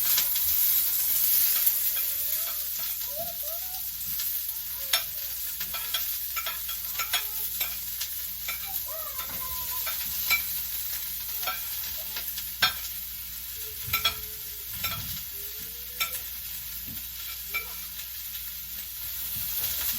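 An omelet frying in a pan with a steady sizzle, while a utensil stirs it and clicks and scrapes against the pan now and then.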